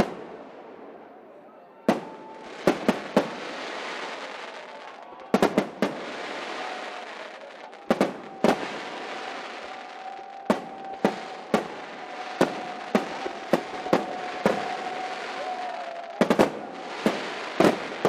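Aerial fireworks display: shell bursts going off as sharp bangs, about twenty of them at irregular intervals, often two or three in quick succession, over a continuous hiss between the bangs.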